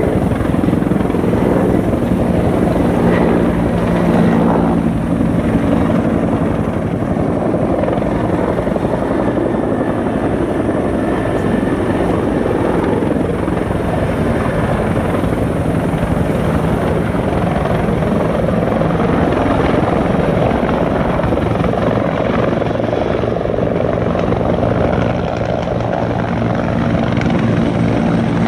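Firefighting helicopter hovering low over a lake, a steady loud rotor and turbine sound, with its rotor wash whipping spray off the water.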